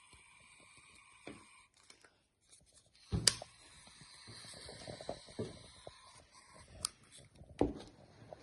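Shaving foam being dispensed from an aerosol can into a bowl: a sharp knock about three seconds in, then a couple of seconds of soft hiss, followed by a few clicks and knocks as the can is handled.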